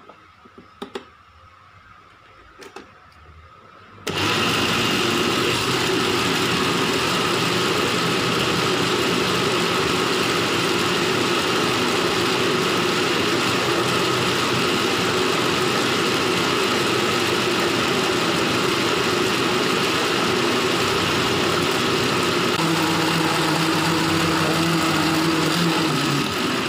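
Turbo EHM 899 countertop blender switched on with its speed knob after a few light clicks, the motor running loud and steady as it blends a full jug of fruit juice; a steadier hum comes through in the last few seconds before it is switched off.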